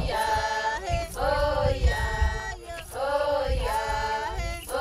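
A group of voices chanting together in short held phrases, about one a second, with low thumps of a beat underneath.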